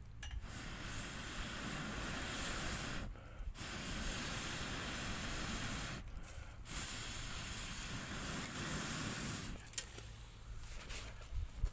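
A rushing hiss of air in three long stretches of about three seconds each, broken by short pauses.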